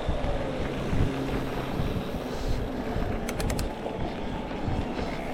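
Electric mountain bike ridden on a trail: wind buffeting the microphone over a steady rumble of tyres, with the motor's thin whine sliding down in pitch, then rising and falling again. A few quick ticks come a little past halfway.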